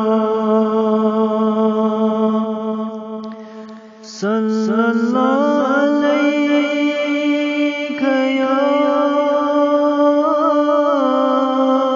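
A man singing an Urdu naat unaccompanied, in long held notes with slow, wavering ornaments. His voice fades out about three seconds in and he starts the next line about a second later.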